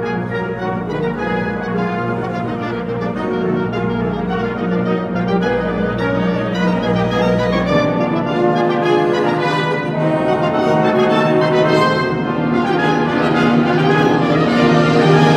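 Orchestral music led by brass, with held chords that swell louder near the end.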